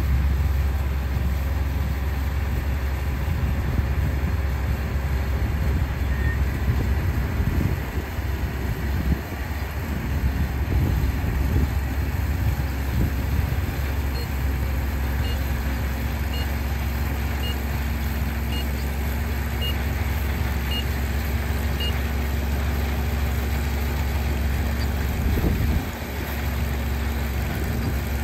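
Small crawler rice combine harvester running steadily as it cuts and threshes standing rice: a deep, even engine drone with the clatter of the machinery over it.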